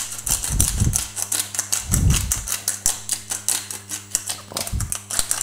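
Hand pepper mill being twisted, grinding peppercorns in a rapid run of crisp clicks, with a few soft low thumps, over a faint steady hum.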